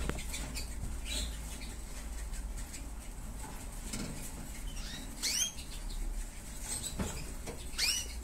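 Small cage birds fluttering with light scratching and rustling, and giving two short downward-sweeping chirps, about five seconds in and near the end.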